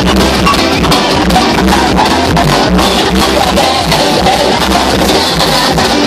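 Loud dance music with a steady drum beat, played over a club's sound system.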